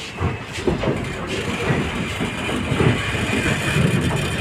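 Indian Railways passenger train running slowly, with the steady noise of the coach and its wheels on the track heard from on board.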